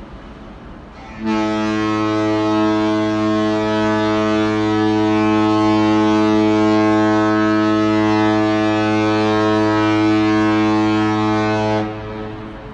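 Cruise ship's horn sounding one long, steady blast of about ten seconds: a deep tone with many overtones. It starts about a second in, cuts off near the end, and a fainter horn tone comes before it.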